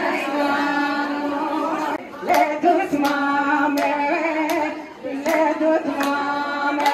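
Women singing a Kurdish folk song (kılam) in long held phrases, led by one voice on a microphone. From about two seconds in, steady hand claps keep time, a little more often than once a second.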